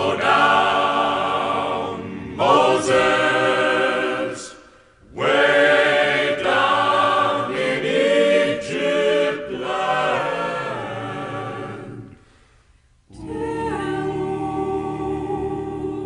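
A choir singing unaccompanied, in long sustained phrases with two short pauses, the second one about three-quarters of the way through.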